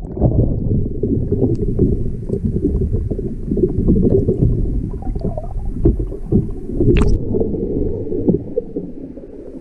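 Muffled sloshing and gurgling of water around a kayak, with a brief splash or knock about seven seconds in.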